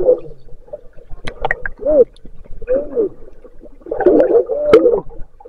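Underwater sound picked up by a submerged camera as a swimmer dives past: short gurgles that rise and fall in pitch, with a few sharp clicks.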